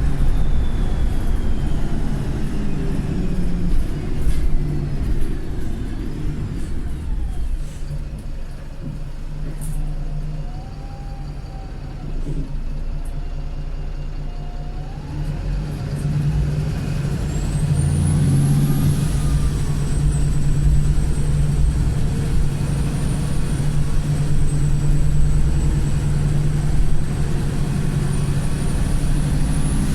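Wright Pulsar bus's diesel engine pulling under way. It eases off for a few seconds in the middle, then works harder again. As it pulls, a thin high turbo whistle rises sharply, dips and holds to the end: the squealing turbo the uploader describes, alongside a cracked turbo.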